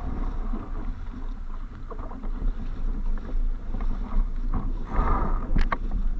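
Strong wind buffeting the microphone in an uneven low rumble. A few sharp knocks come about five and a half seconds in.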